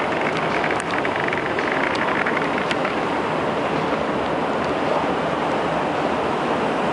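Steady noise of a running ThyssenKrupp escalator as it is ridden, with a run of light ticks and a few sharp clicks in the first three seconds.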